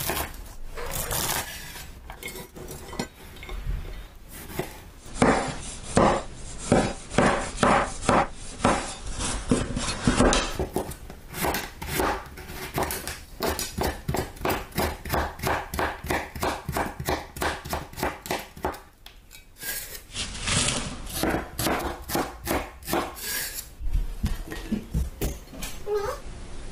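A kitchen knife chopping asparagus stalks and a carrot on a bamboo cutting board: runs of sharp knocks, about two or three a second, with a short pause partway through.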